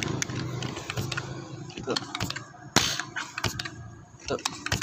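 Scattered mechanical clicks and knocks from handling an uklik air rifle and its scope, with one louder sharp crack a little under three seconds in.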